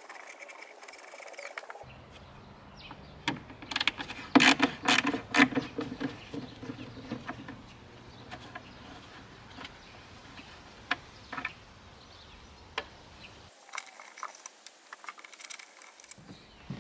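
Hands at work on a wooden dresser: a flurry of sharp knocks and rattles about four to six seconds in, then scattered light clicks and taps.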